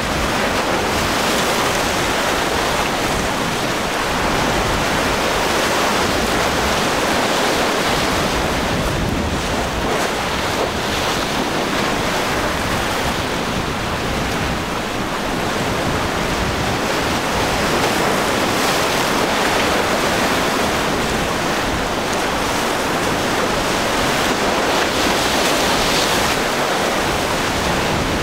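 Rough sea surf, with waves breaking and churning, and strong wind rushing over the microphone. It is a steady, even rush, with no engine note standing out.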